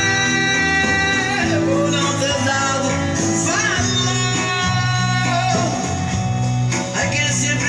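A recorded song with a singing voice and guitar, played through a sound system of passive speakers with Magnum 200 W RMS drivers.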